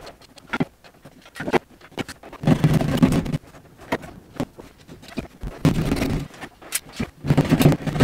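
Hand saw cutting through hollow plasterboard, sawing out a square hole for a switch back box: three spells of rasping strokes, each about a second long, with light knocks and taps between.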